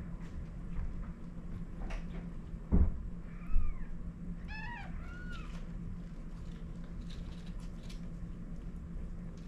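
A few short, high, thin mews from newborn kittens in the birthing box, coming about three to five seconds in. Two dull thumps from inside the box, the loudest sounds, come just before and with the first mew.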